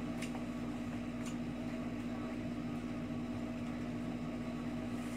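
Steady room hum from a running appliance such as an air conditioner or fan, with a constant low tone, and a couple of faint ticks.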